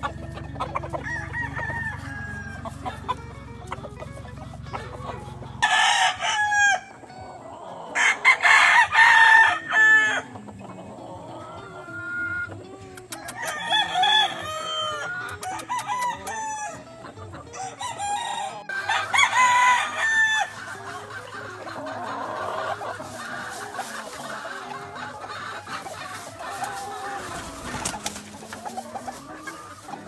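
Gamefowl roosters crowing, about four loud crows spread through, with softer clucking in between.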